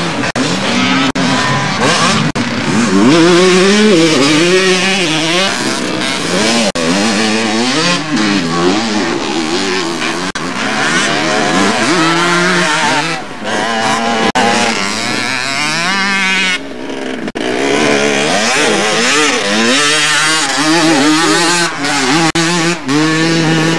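Motocross motorcycle engines revving hard as the bikes race along a dirt track. Several engines overlap, their pitch rising and falling again and again with the throttle.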